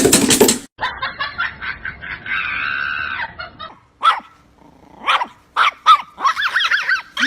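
A dog barking and yipping: a loud burst of barks at the start, then a longer drawn-out vocal sound and several short separate yips and whining calls.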